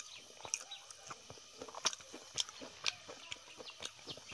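Close-up mouth sounds of someone chewing a mouthful of cooked leafy greens, with irregular wet clicks and smacks.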